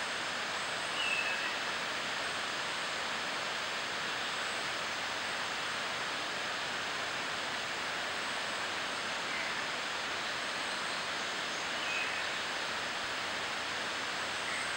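Amami thrush singing faintly: short, thin whistled notes about a second in and a few more near the end, spaced several seconds apart. A steady rushing noise, louder than the bird, runs underneath.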